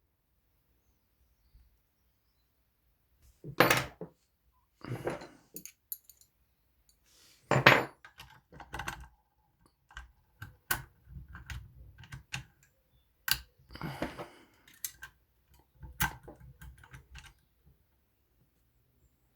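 Lever-lock picking tools clicking, scraping and clinking in a Union 3G110 five-lever lock, in irregular clicks and short metal rattles that start a few seconds in.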